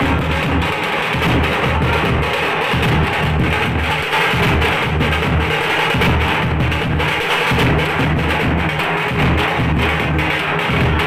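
Loud drum-led music with a heavy, steady beat and sharp percussive strokes.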